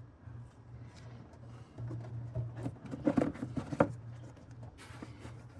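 Handling noises as a new engine air filter is seated in its plastic airbox: light rustling and clicks, with a cluster of knocks and scrapes about three to four seconds in, over a steady low hum.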